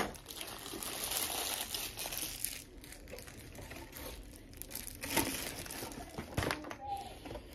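Thin plastic Lego parts bags crinkling as they are handled and opened, busiest in the first two or three seconds, then quieter, with a couple of short light clicks later on.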